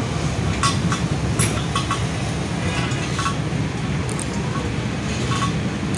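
Steady low background rumble in a workshop, with a few light clicks and knocks as small metal parts and a wheel rim are handled on a concrete floor.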